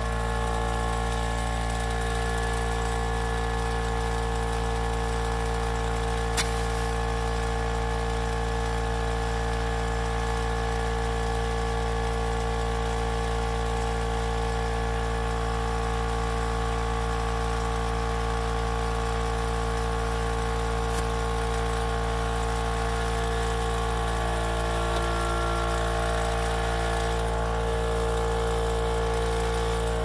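Air compressor running steadily, pumping air into a freshly plugged tire. There is a single sharp click about six seconds in.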